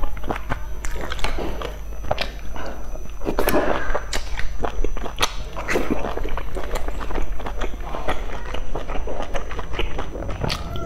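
Close-miked eating of dumplings: wet chewing and mouth smacking, with many sharp clicks of chopsticks against a small metal sauce bowl.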